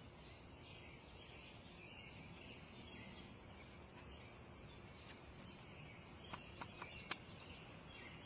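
Quiet outdoor garden ambience with small birds chirping in the background, and four short, sharp clicks close together about six to seven seconds in.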